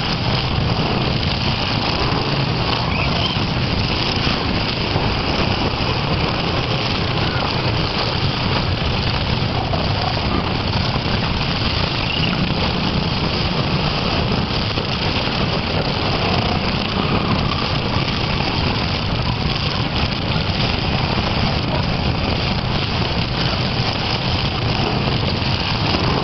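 Engines of several demolition derby cars running at once in the arena, a steady loud mix with faint voices of spectators under it.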